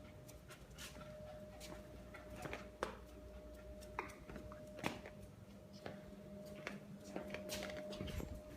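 Puppy's claws clicking and tapping on a hard floor at irregular intervals as it moves about, over a steady electrical hum.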